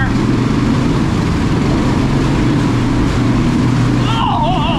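ATV engine running under load over rough ground, a steady low drone with rumble. About four seconds in, a wavering voice rises over the engine.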